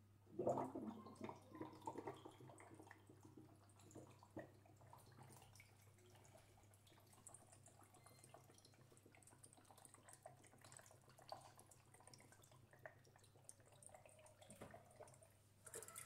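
Air blown slowly out of a mouth held under the water of a plastic bucket: faint bubbling and gurgling, a string of small pops, louder for the first second or two and then dying down to a light trickle.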